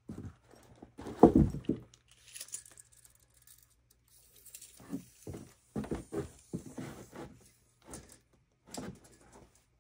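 Irregular knocks and thuds, the loudest about a second in, then a cluster of quicker knocks from about five to nine seconds in.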